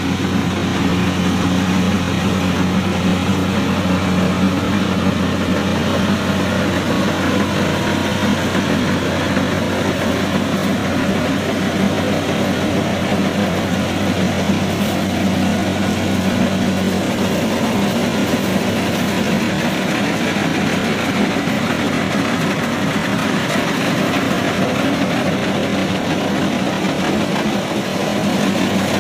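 Kubota DC70 rice combine harvester running steadily under load while cutting and threshing rice: a continuous engine drone with a low hum and the rattle of the cutting and threshing machinery over it.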